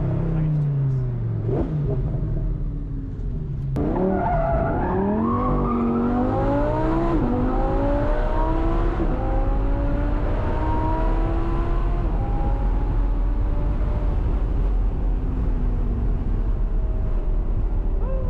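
Audi R8's V10 engine through a valved exhaust, driven hard. The engine note falls at first, jumps abruptly about four seconds in, then climbs and stays high at strong revs.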